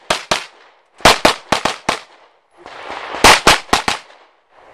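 A handgun fired in rapid strings during a timed stage: about a dozen sharp shots in quick bursts of two to five, with short pauses between the bursts.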